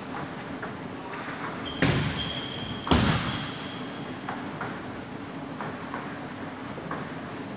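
Table tennis in a hall: light clicks of the celluloid ball, with two louder thuds about two and three seconds in and a thin high ringing tone between them.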